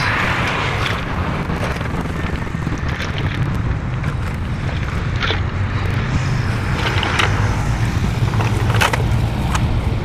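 Outdoor street-market background noise: a steady low rumble with scattered light clicks and clatter, the sharpest a little before the end.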